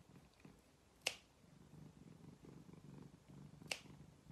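A cat purring faintly while its claws are trimmed, with two sharp snips of pet nail clippers, about a second in and near the end.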